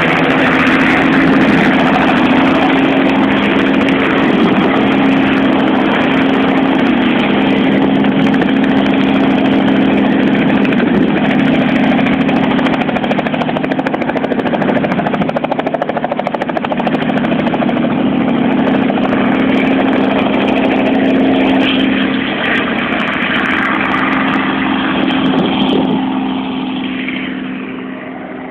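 Small helicopter taking off and flying away, its rotor and engine making a loud, steady drone that fades over the last few seconds.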